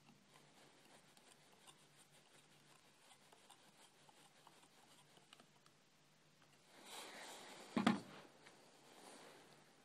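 Faint small scrapes and ticks of a screwdriver and small screws being worked on a telescope's metal secondary-mirror spider. About seven seconds in, a short burst of rubbing is followed by one sharp knock, the loudest sound.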